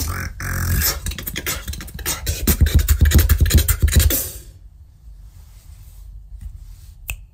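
Solo human beatboxing: rapid mouth-percussion clicks and snares over deep bass hits, stopping suddenly about four and a half seconds in as the routine ends, leaving only quiet room tone.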